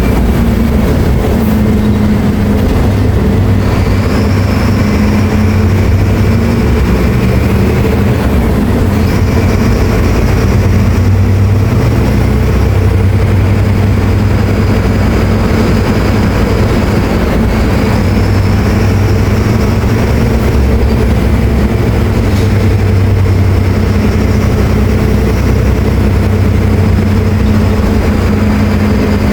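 Diesel engine of a Mercedes-Benz OF-1724L BT5 city bus running under way, a four-cylinder turbodiesel, with a high whine that comes and goes several times.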